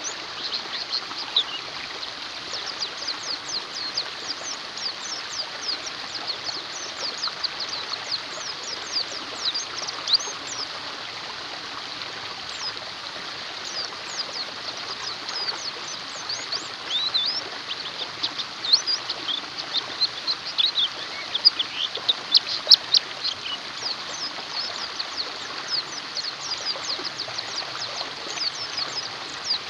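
White-eyes chirping and twittering in a busy run of quick, high, down-sweeping notes, busiest in the second half, over a steady rush of flowing water.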